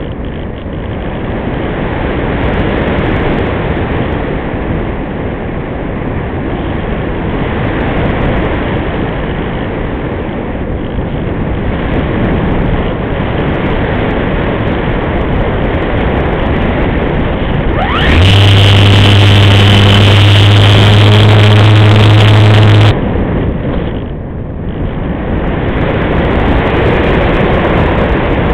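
Airflow rushing over the Multiplex Easy Glider's onboard camera in flight. About 18 s in, the glider's electric motor and propeller start, spin up quickly, and run at a loud steady pitch for about five seconds before cutting off abruptly, a burst of powered climb.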